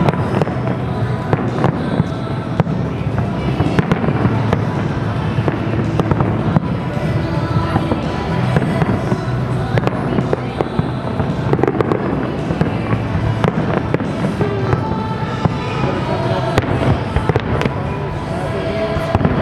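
Aerial fireworks bursting in a dense, continuous barrage of sharp bangs and crackles, with music playing underneath.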